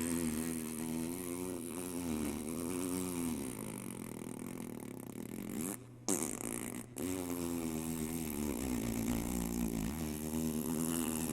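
A low, trumpet-like drone whose pitch slowly swells up and down over a steady deep hum, of the kind posted online as unexplained 'apocalypse sounds'. It drops out briefly about six seconds in, then carries on.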